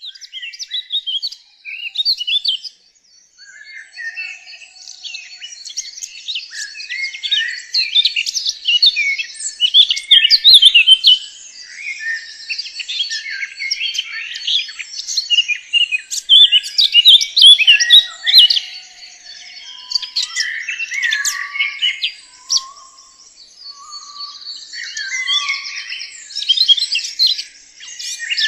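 Birds singing and chirping, several at once, in a dense run of short high chirps. A few lower whistled notes come in past the middle.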